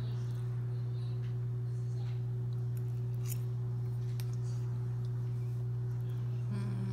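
A steady low hum that does not change, with a few faint short clicks over it.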